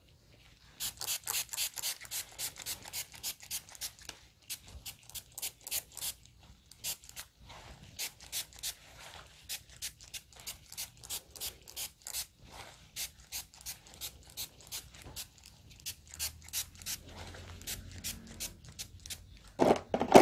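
Quick rhythmic rubbing and scraping strokes, several a second, as gloved hands and a nozzle applicator bottle work magic-straight softening solution through wet, saturated hair. A single louder thump comes right at the end.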